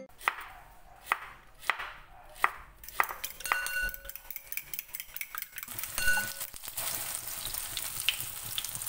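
A fork clinks and taps against a ceramic bowl as eggs are beaten. From about two-thirds of the way in, oil sizzles steadily in a nonstick frying pan as an egg-and-okra patty fries.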